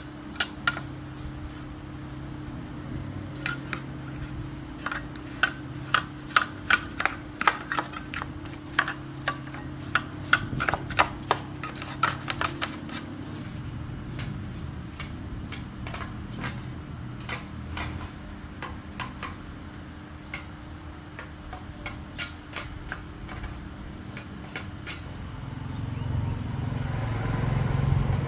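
Irregular sharp taps and clicks of hand tools working on a welding machine's parts, thickest in the first half, over a steady low hum; a rougher rubbing noise builds near the end.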